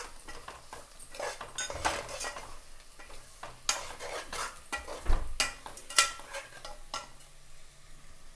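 Metal spoon stirring onions and spices in a pan, scraping and clinking against the pan at irregular moments.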